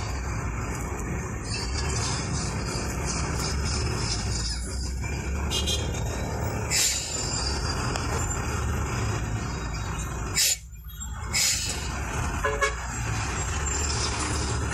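Traffic noise from inside a vehicle in slow city traffic: a steady low engine and road rumble, with a few short, sharp louder sounds about seven, ten and a half and eleven and a half seconds in.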